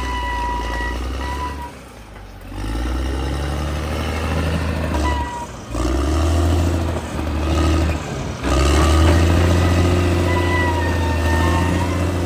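Caterpillar D6R XL bulldozer's diesel engine running steadily with its tracks working, a low drone with a thin high squeal that comes and goes. The sound drops away sharply three times, most deeply about two seconds in, and again around five and a half and eight and a half seconds in.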